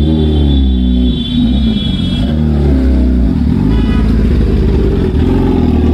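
Kawasaki Ninja ZX-10R's inline-four engine revved again and again through an aftermarket slip-on exhaust, the revs rising and falling.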